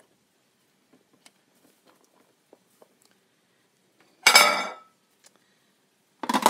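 Faint soft ticks as cabbage leaves are settled in a stainless steel pressure-cooker pot, then about four seconds in a loud metallic clank with a short ring as the Instant Pot's stainless lid is handled against metal. Just before the end a second metal clatter begins as the lid goes onto the pot.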